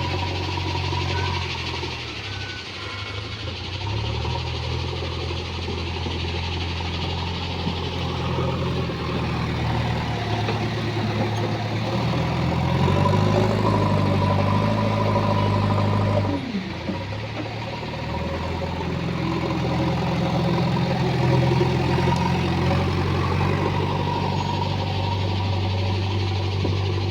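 JCB 3DX backhoe loader's diesel engine running while the machine works. It revs up about halfway through, drops back suddenly, then revs up again.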